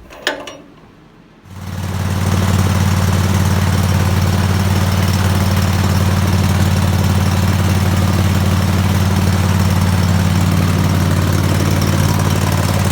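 The 25-horsepower engine of a White garden tractor running at a steady speed. It comes in suddenly about a second and a half in, just after a short click, and holds steady from then on.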